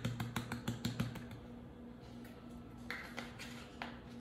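Quick run of sharp clicks, about six a second, from a spice jar's plastic top being worked as ground sage is dispensed, stopping about a second in; a few single soft clicks follow.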